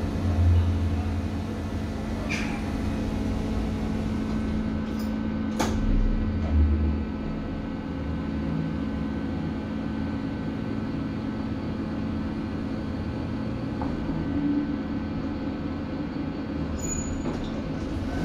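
Two-speed Mitsubishi lift car in motion, with a steady motor and machinery hum, low thumps near the start and again about six seconds in, and a sharp click between them. A few short, high-pitched beeps sound near the end.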